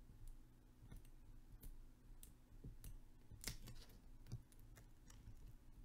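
Faint, scattered clicks and ticks of a weeding hook picking at cut plotter vinyl held in the fingers, one slightly louder about three and a half seconds in.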